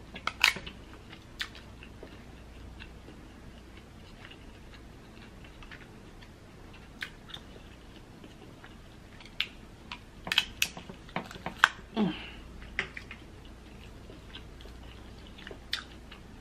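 A cooked lobster claw's shell being cracked and pulled apart by hand: scattered sharp clicks and snaps, most of them in a cluster about ten to twelve seconds in, with faint chewing and a short vocal sound about twelve seconds in.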